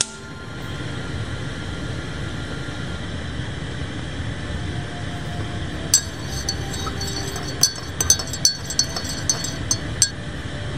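Crafting pieces being handled: a run of crisp crinkles and clicks from about six seconds in until near the end, over a steady low background rumble.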